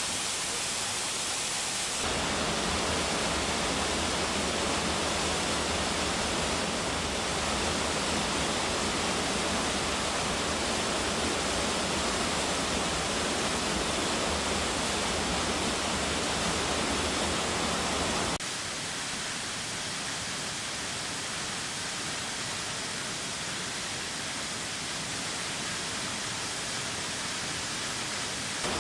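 Waterfall: a steady rush of falling water. It gets louder and fuller about two seconds in, then drops back abruptly about two-thirds of the way through.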